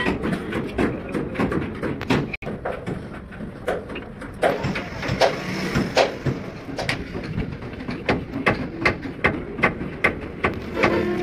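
Irregular metallic clinks and knocks, metal parts being handled and tapped at a bus wheel hub during rear drum brake reassembly.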